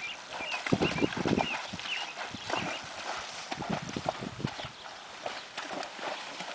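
Hooves of a Kentucky Mountain Saddle Horse stepping at a walk under a rider, in an uneven series of dull knocks.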